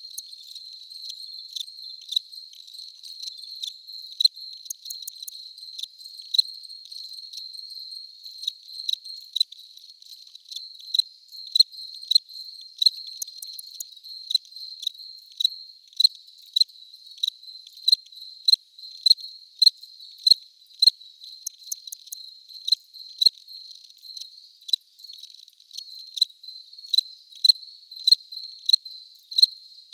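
Crickets chirping: a steady high trill, with louder chirps repeating evenly about three times every two seconds. The chirps stand out more in the second half.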